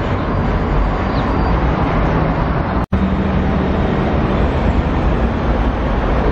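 Steady traffic noise of cars driving along a wide city avenue, briefly cut off for an instant about three seconds in.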